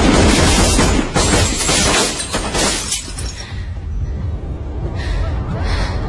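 A rapid burst of gunfire with glass shattering, dense and loud for about the first three seconds, then dying away into a low, tense music drone with a couple of fainter crashes near the end.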